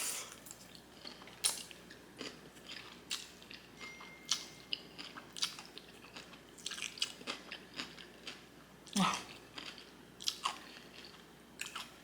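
Close-miked chewing of jjajangmyeon (black bean noodles), with irregular wet mouth smacks and clicks. There is a louder mouth sound about nine seconds in.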